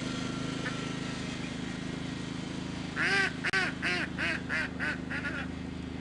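Ducks quacking in a quick run of about eight calls, starting about three seconds in, over the steady drone of a riding lawn tractor's engine.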